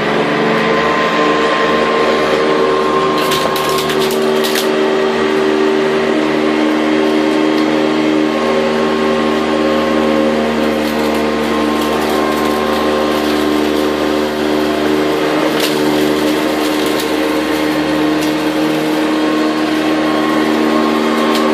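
Hoover Convertible bagged dirty-air upright vacuum cleaner running steadily on low-pile carpet, a constant motor-and-fan whine. A few brief sharp ticks sound around three to four seconds in and again past the middle.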